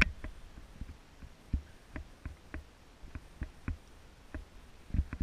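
Camera handling noise: irregular soft clicks and low thumps, a few a second, with a louder knock near the end.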